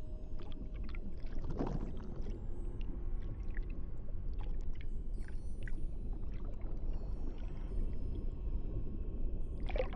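Underwater ambience: a steady, muffled low rumble of water with scattered faint clicks and pops, and two brief swishes, one about a second and a half in and one just before the end.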